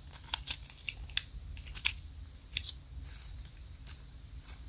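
Faint scattered clicks and light plastic rustling as a small foam squishy toy, still in its clear plastic wrapper with a ball chain attached, is squeezed and turned in the fingers.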